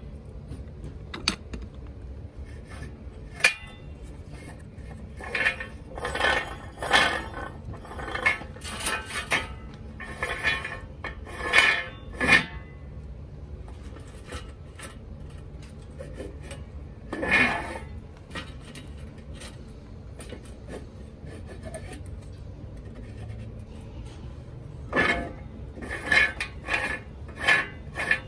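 Metal tools and parts clinking and scraping in scattered bursts, over a steady low hum.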